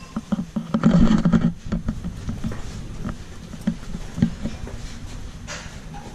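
Footsteps of people walking along a carpeted corridor, soft knocks roughly every half second, with a louder rustle and bump about a second in.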